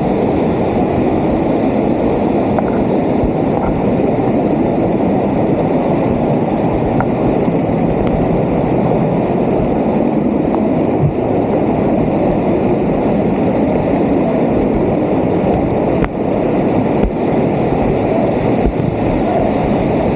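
Steady, loud rushing of water from a waterfall, an even roar with no breaks.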